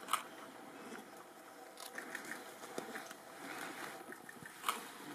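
Leaves and bamboo rustling and crackling softly, with two sharp clicks, one just after the start and one near the end.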